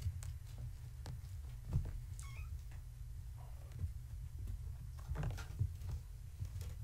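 A four-week-old kitten gives a single high, falling mew about two seconds in. Around it are soft thumps and scuffles of kittens playing, over a steady low hum.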